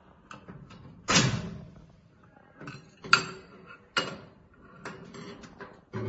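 Metal clicks and clunks of a digital keypad rifle safe being unlocked with its key, the handle turned and the door opened: a loud rattling clunk about a second in, then sharp clicks at about three and four seconds, with lighter clicks between.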